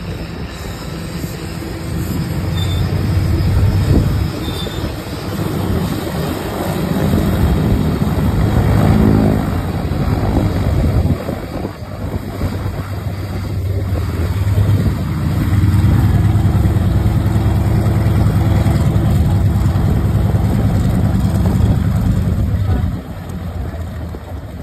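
Antonov An-2's nine-cylinder radial engine running as the biplane taxis, a low droning note that swells and eases several times with the throttle and drops back near the end.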